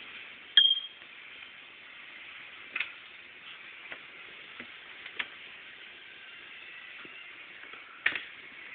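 Steady faint hiss of running shower water, broken by four sharp knocks, the loudest about half a second in and the last near the end.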